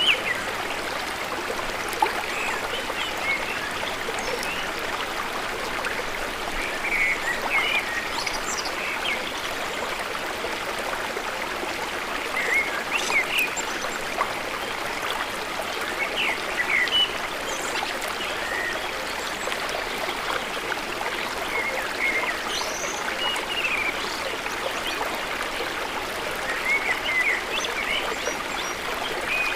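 Water trickling and running steadily, with short high chirps scattered through it.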